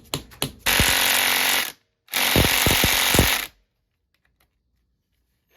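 A few quick taps of a dead-blow hammer on the seized cylinder of a KTM two-stroke dirt bike engine, then two loud hissing bursts, each about a second long, with a few knocks heard inside them.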